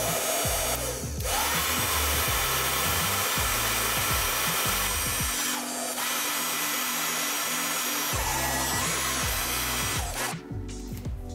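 Heat gun blowing hot air onto heat-shrink tubing over spliced scooter motor wires: a steady rushing whir that dips briefly twice and cuts off about ten seconds in.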